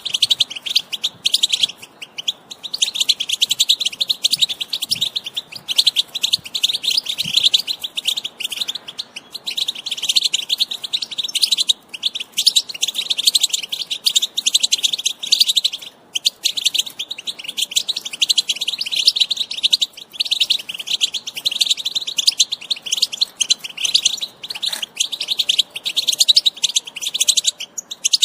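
European goldfinch singing: a fast, continuous twittering of high chirps and trills, broken by short pauses every few seconds.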